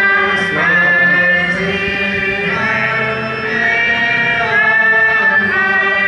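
Slow chant-like singing with long held notes, moving in steps from one pitch to the next.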